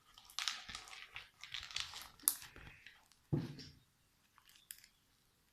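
Slime with small beads mixed in being squeezed and stretched by hand, giving irregular crunching and crackling that dies down about four seconds in, leaving a few faint clicks.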